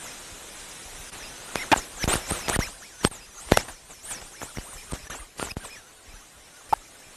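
A run of sharp, irregular knocks and cracks lasting about four seconds, with one more single crack near the end, over a steady outdoor background.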